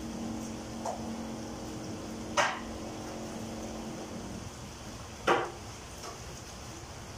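Chicken sizzling in a frying pan on a gas stove, over a steady hum that stops about four seconds in. Two sharp clatters of cookware ring out about three seconds apart.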